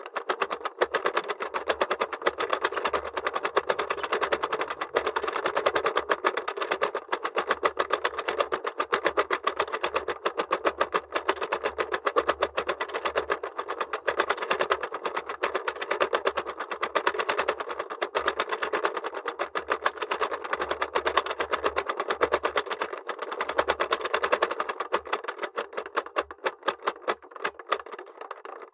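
Plastic mechanism of a 1975 Tomy owl toy clock being worked by hand: a fast, unbroken rattle of clicks, like a ratchet.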